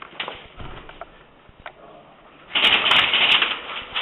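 Airsoft gun firing a rapid burst of shots about two and a half seconds in, lasting about a second, after a stretch of soft knocks and footsteps.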